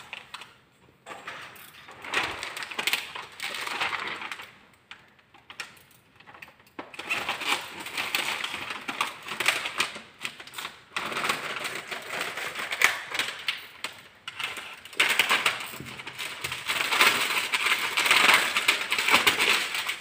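Plastic window tint film crackling and a squeegee scraping over it as the film is pressed onto wet glass, in repeated swells of several seconds each.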